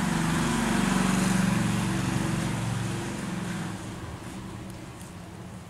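A motor vehicle's engine running as it passes by: loudest about a second in, then fading away over the last couple of seconds.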